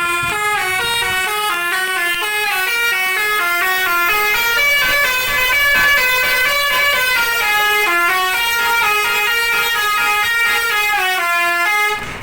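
Telolet bus horn, a set of musical air horns, playing a fast tune of stepping notes that change several times a second. It cuts off abruptly near the end.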